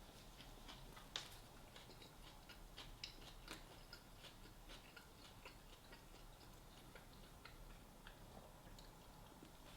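Near silence with faint, irregular small clicks and smacks of someone eating, one sharper click about a second in.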